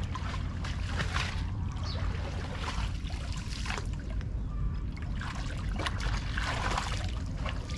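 Water splashing and sloshing in repeated short splashes, about one a second, over a steady low rumble.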